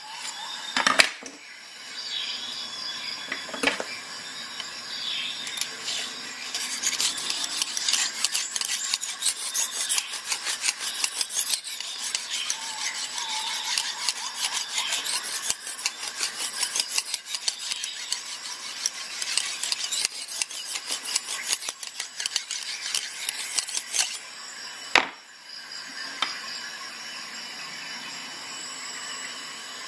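Lansky sharpening hone stroked rapidly back and forth along a clamped knife edge, a continuous scraping rasp of abrasive stone on steel. Two sharp knocks, about a second in and about five seconds before the end, stand out above the scraping.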